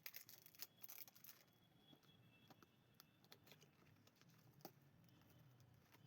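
Faint crinkling and tearing of parcel packaging being opened, mostly in the first second and a half, then near silence with a few small clicks.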